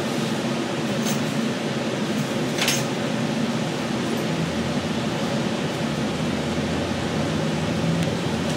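Steady cabin running noise of a cable-hauled Doppelmayr Cable Liner people-mover car gliding along its guideway, with a low hum. A short click comes near three seconds in.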